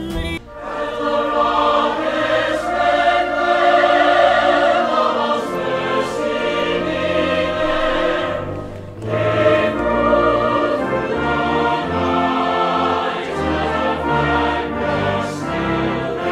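Background music: a choir singing over orchestral accompaniment, dipping briefly about nine seconds in.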